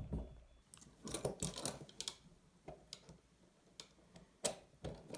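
Metal handcuffs clicking as a double-ended handcuff shim is worked in them: a quick run of ratchet-like clicks about a second in, then single sharp clicks every second or so.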